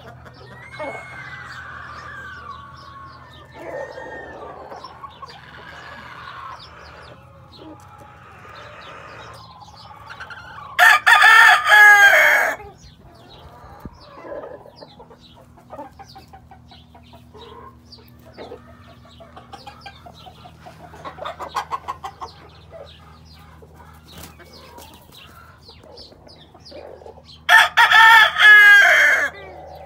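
Gamefowl roosters crowing: two loud, close crows, one about eleven seconds in and one near the end, each about a second and a half long, with fainter clucking and calls from other fowl between them.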